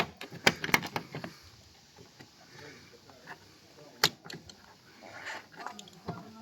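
Screwdriver clicking and tapping while a screw is undone in the tail light's plastic trim, with scattered sharp clicks: a cluster in the first second or so, a sharp one about four seconds in, and a few more near the end.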